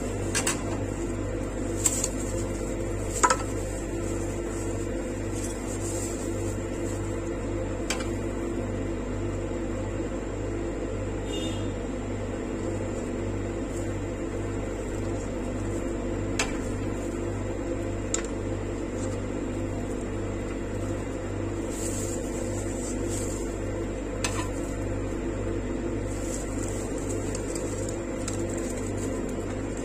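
Steady machine hum beneath a handful of sharp clinks of metal spatulas on the steel cold plate as rolled ice cream is scraped up and packed into a paper cup; the loudest clink comes about three seconds in.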